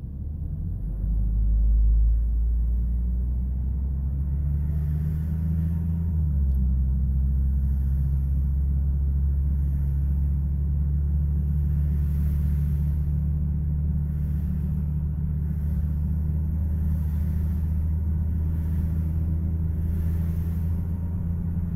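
Truck engine and road noise heard from inside the cab as it pulls away and drives on, a steady low hum that swells about a second in; the engine note drops about six seconds in, like an upshift.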